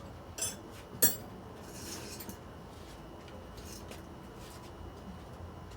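Metal hand tools clinking against each other: two sharp clinks in the first second, the second the loudest, then a few faint taps.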